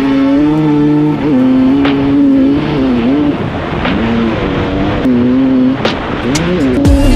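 Honda CR250 single-cylinder two-stroke motocross engine under load, holding its revs and then dipping and rising again several times as the rider rolls off and gets back on the throttle through the gears.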